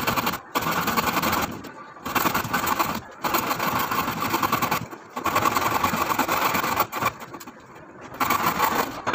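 Handsaw cutting through a wooden plank: steady sawing in stretches of one to two seconds, broken by several short pauses.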